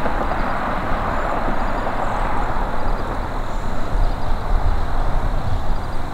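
Steady rushing outdoor noise with an uneven low rumble underneath and no distinct events.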